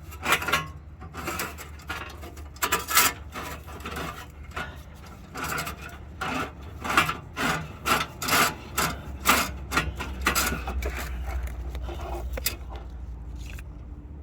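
Cat Clamp's steel cable being pulled and fed around the exhaust and under-body parts, scraping and rubbing against metal in irregular strokes that thin out near the end.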